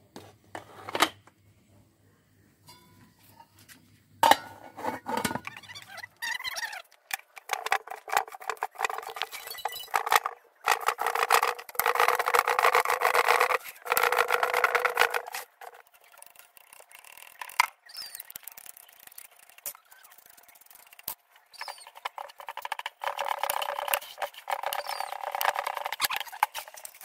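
Hand stone rubbing and crushing red chillies on a flat stone grinding slab, a rough gritty scraping that runs in long stretches with a quieter pause in the middle. A couple of sharp knocks come first.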